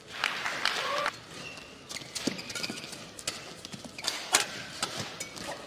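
Badminton rally: rackets strike the shuttlecock in quick succession, with shoes squeaking and stepping on the court mat.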